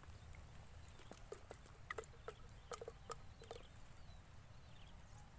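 Quiet, with faint scattered drips and light plastic taps as a plastic-bottle fish trap is lifted from the water and drains.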